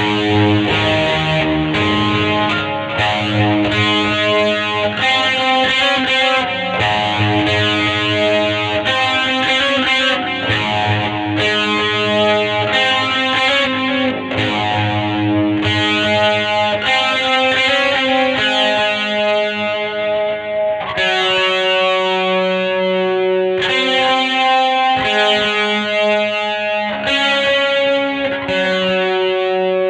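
Squier Vintage Modified Jaguar electric guitar played with distortion, ringing out sustained chords that change every second or two.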